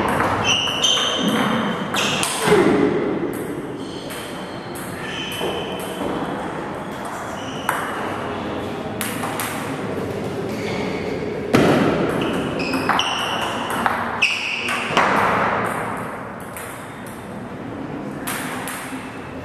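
Table tennis ball struck back and forth with bats and bouncing on the table: runs of sharp, briefly ringing clicks during rallies, with short pauses between points.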